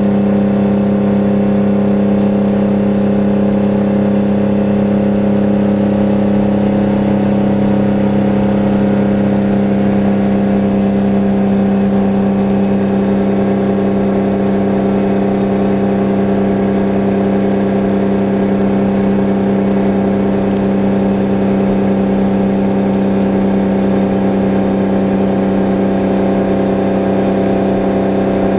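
Detroit Diesel 12V71 two-stroke V12 in a 1973 Kenworth W-923, heard from inside the cab, running steadily at an almost constant engine speed under a light load.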